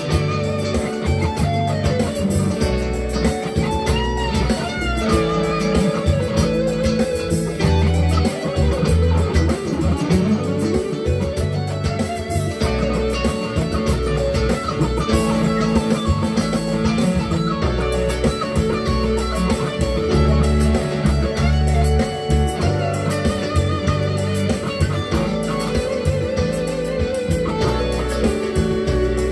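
Electric guitar, a GEARIT GST 100 Strat-style copy, played in single-note lead lines with bends and slides over a steady low bass line.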